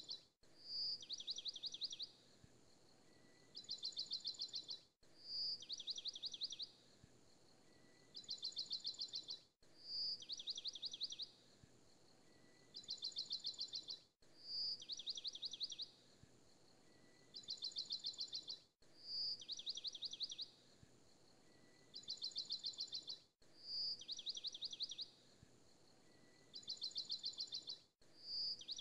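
Looped birdsong recording: a small songbird's high, rapid trills repeat identically about every four and a half seconds, with a brief dropout at each repeat, over a faint hiss.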